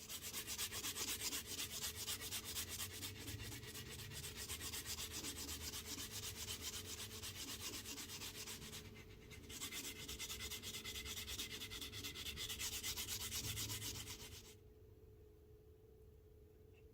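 Rapid back-and-forth rubbing strokes on leather, as in sanding or burnishing a leather slip's edge. They run for about nine seconds, pause briefly, resume for about five more, then stop.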